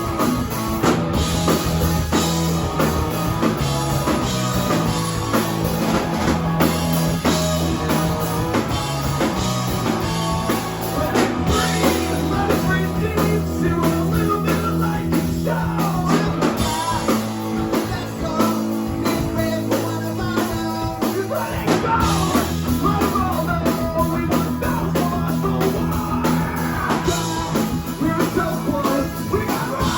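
A rock band playing live: distorted electric guitars, bass and drum kit, with sung vocals coming in partway through.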